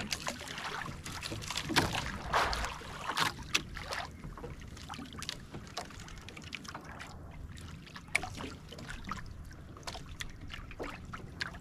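Water slapping and splashing against a small outrigger boat's hull and floats as it rocks on choppy water, with scattered short knocks, busiest in the first few seconds.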